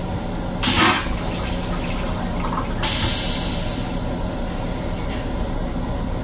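Toilet in an M7 railcar restroom flushing: a short whoosh about a second in, then a hiss of rinse water into the stainless-steel bowl that fades over a second or two. A steady low rumble runs underneath.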